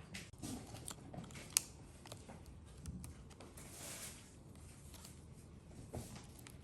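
Small clicks and light scraping from laptop parts and tools being handled during a RAM and SSD upgrade, with one sharp click about one and a half seconds in and a soft rasp near the middle.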